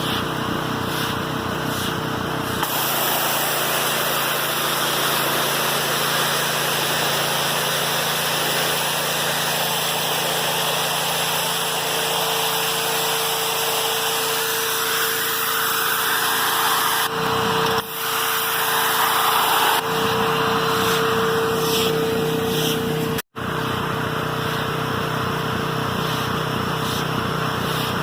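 Electric pressure washer running with a steady whine, joined about three seconds in by a loud hiss of water spraying. The sound cuts out for an instant about 23 seconds in.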